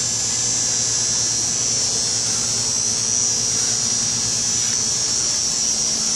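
Steady machine hum with a constant high-pitched hiss, the background drone of a Metro station's machinery.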